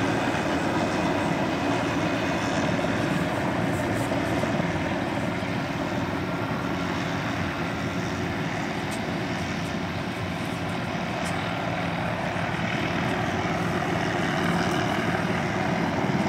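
Steady engine rumble from heavy machinery, easing slightly in the middle and rising again near the end.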